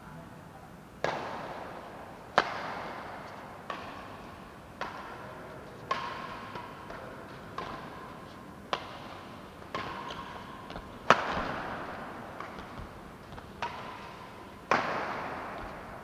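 Badminton rackets striking a shuttlecock in a doubles rally: about eleven sharp smacks, roughly one a second, each followed by a short echo in the hall.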